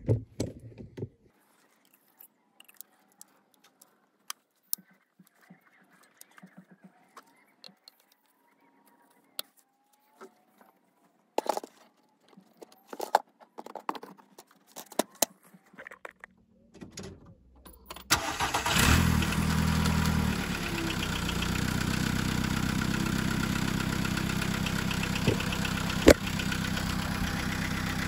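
Scattered clicks and knocks as plastic engine parts are pressed back into place. About two-thirds of the way through, a SEAT Ibiza 1.4 four-cylinder petrol engine is started and settles into a steady idle. It runs smoothly on all four cylinders, its cylinder-one misfire cured by a new coil pack.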